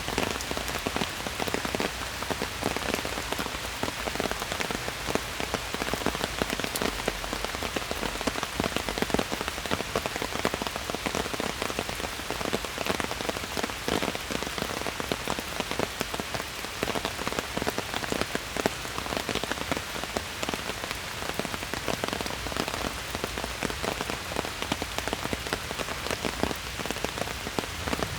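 Steady rain falling in a forest, a dense patter of individual drops over an even hiss.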